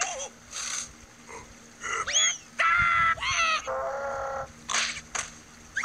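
Cartoon larva characters' wordless squeals and cries: a sharp rising-and-falling squeal about two seconds in, then several held, wailing cries, with short swishing effects before and after.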